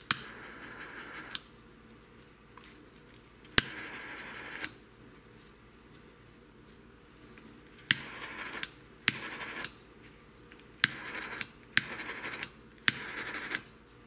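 Flip-lid jet torch lighter clicked and fired seven times, each sharp ignition click followed by a short hiss of flame lasting under a second to about a second and a half.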